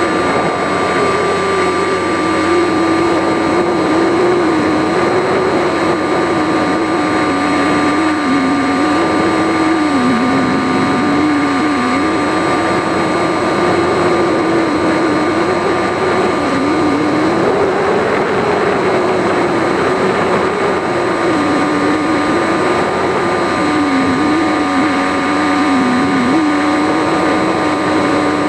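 Brushless electric motor and propeller of an RC foam plane heard from its onboard camera in flight, running steadily with the pitch wandering up and down as the throttle changes, over a haze of noise.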